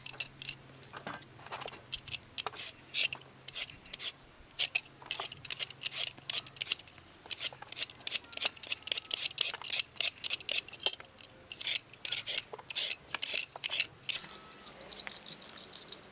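Knife cutting raw potatoes: a fast, irregular run of short, sharp scraping strokes.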